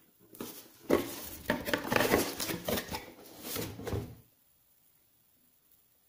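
Hands handling the microphone kit and its cardboard box: a quick run of knocks, taps and rustles that ends about four seconds in.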